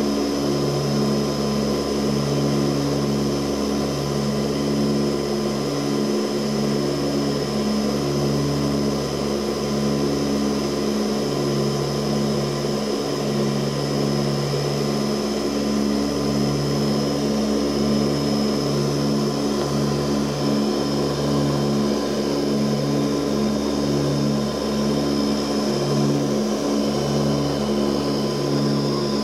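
Ilyushin Il-18's Ivchenko AI-20 turboprop engines and propellers droning steadily, heard inside the passenger cabin in flight. A low hum within the drone comes and goes every second or so.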